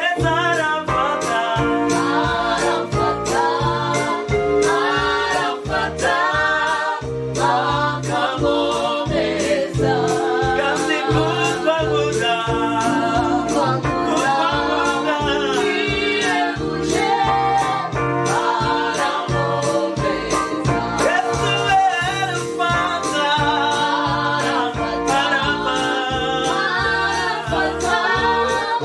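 Gospel song sung by a small group of three voices, male and female, accompanied by a Yamaha PSR-S670 arranger keyboard playing sustained chords over a steady beat.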